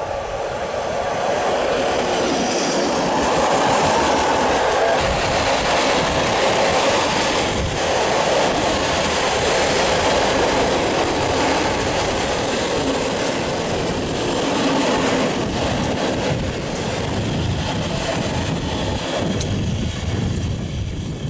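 Freight train passing at speed close by: an EU07 electric locomotive followed by container flat wagons, wheels rumbling and clattering on the rails, easing off slightly near the end as the train moves away.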